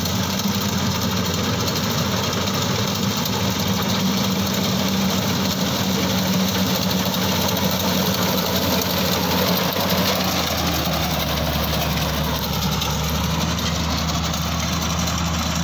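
Claas tracked combine harvester running steadily while cutting paddy: a continuous diesel engine drone with the clatter of its working machinery. About ten seconds in, the engine note shifts slightly.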